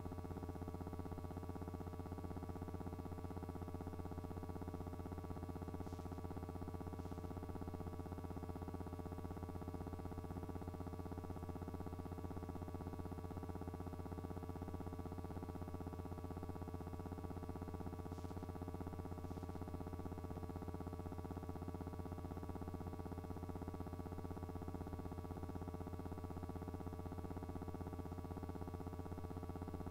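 Steady low electrical hum that never changes, with a few faint ticks now and then.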